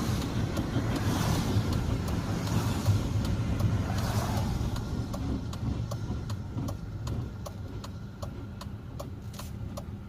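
Car cabin: engine and road noise from a moving car, fading as the car slows. About halfway through a regular ticking starts and runs on.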